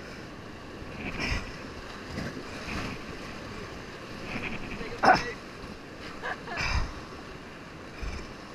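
Fast river water rushing under and around an inflatable whitewater raft, with paddle strokes splashing into the water every second or so; the loudest splash comes about five seconds in.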